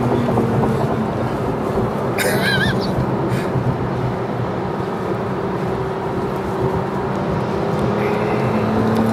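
2017 Porsche 911 Carrera S's twin-turbo flat-six running under load, heard from inside the cabin, its pitch fairly steady through a corner and starting to rise near the end as it accelerates. A brief high warbling squeal comes about two and a half seconds in.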